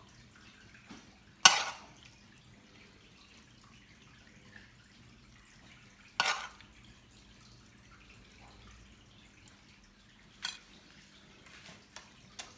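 A metal serving spoon knocking against the rim of a coated pot and pan as a cabbage-and-meat mixture is spooned onto rice: a few sharp clinks several seconds apart, the loudest about a second and a half in.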